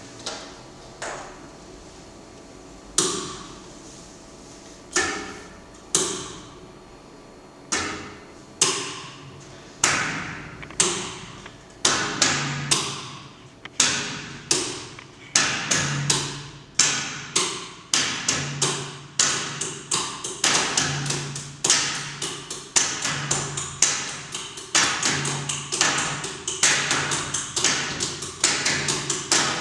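A series of sharp, ringing percussive strikes, each fading away. They come sparsely at first and quicken into a dense run of several a second, and a low tone pulses regularly underneath from about halfway.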